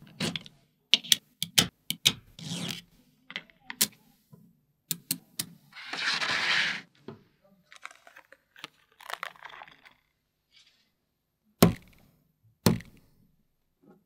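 Small magnetic balls clicking and snapping together as hands handle and place sheets of them, with a longer scrape about six seconds in and two sharp clacks near the end.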